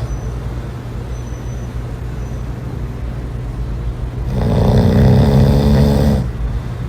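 A person snoring, with one long snore about four seconds in, over a steady low hum.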